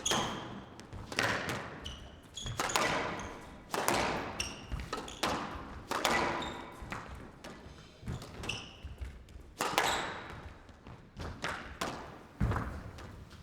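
Squash rally on a glass court in a hall: the ball struck by the rackets and cracking off the walls in sharp, echoing hits about once a second, with short high squeaks of players' shoes on the court floor.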